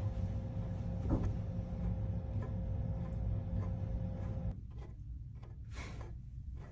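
Room tone: a steady low hum with a few faint soft knocks. About four and a half seconds in it changes suddenly to a quieter room tone with a few short faint rustles.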